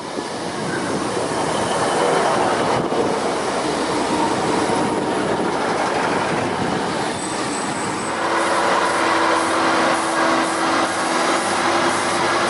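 Class 150 Sprinter diesel multiple unit running past along the platform: diesel engines and wheels on the rails. A steady whine comes in about eight seconds in.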